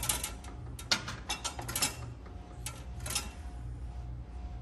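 Small cutter being turned around a copper refrigerant line with light pressure to score and ring it: an irregular run of sharp metallic clicks and ticks, the loudest near the start and about a second in.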